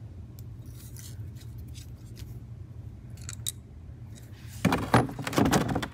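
Small loose metal engine parts, rod bolts and a nut from a failed connecting rod, clinking as they are handled: a few light clicks, then a louder burst of metallic rattling near the end, over a steady low hum.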